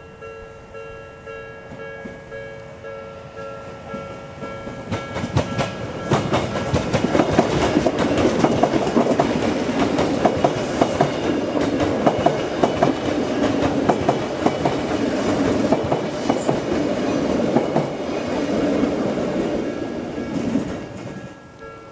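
Level-crossing warning bell ringing with a steady electronic tone while an Odakyu Line electric train passes. The train's wheels clack in a rhythm over the rail joints, building from about five seconds in and falling away shortly before the end, when the bell alone is heard again.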